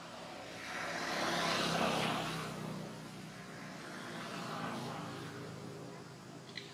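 A vehicle passing by: a swell of engine and road noise that rises to a peak about two seconds in and fades, followed by a second, softer pass a couple of seconds later.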